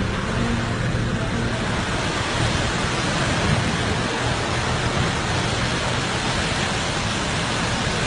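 Vehicle driving on a rough mountain road past a roadside waterfall: a steady rushing noise of falling water mixed with the low rumble of the engine and tyres.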